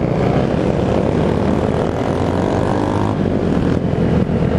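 Loud motorcycle engines and exhausts running together, with one engine revving up about two and a half seconds in.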